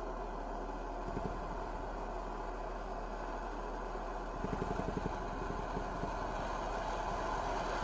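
Homemade tin-can hot air engine running fast with a steady buzzing rattle. A rapid ticking clatter comes in more strongly about four seconds in.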